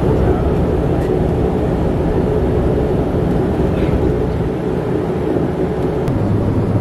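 Airliner cabin noise: the jet engines run with a loud, steady rush as the plane rolls along the runway before takeoff, with a steady hum whose pitch drops lower about six seconds in.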